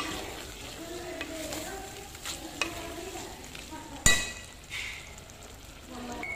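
Wooden spatula stirring a thick eggplant and spice mixture in an aluminium pot as it sizzles, with small scraping knocks against the pot. One sharp knock about four seconds in is the loudest sound.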